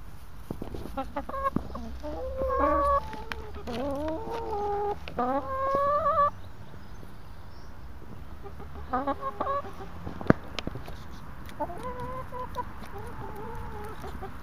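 Domestic hens clucking and giving drawn-out calls, some rising in pitch, as they crowd a hand offering grapes. The calls come in bursts, busiest in the first six seconds and again near the end, with a few sharp clicks, one loud about ten seconds in.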